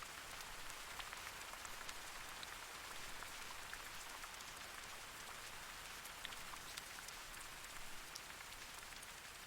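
Light rain falling: a steady soft hiss with many small drop ticks scattered through it.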